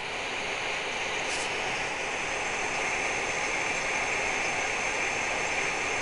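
Steady rushing noise, a hiss-like outdoor background picked up by a live railroad-crossing webcam's microphone, swelling slightly over the first second.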